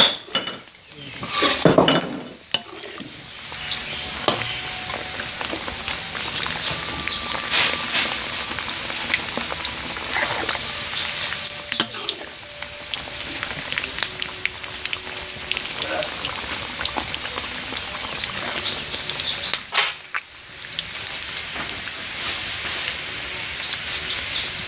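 Sun-dried pork pieces deep-frying in hot oil in a metal wok: a steady sizzle, with scrapes and clinks of a metal spatula turning the pieces against the wok.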